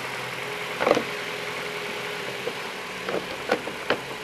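2016 Ford Escape engine idling steadily after a hard start. Over it come several short plastic clacks and knocks as the battery cover is pushed back into place: one about a second in, and three close together near the end.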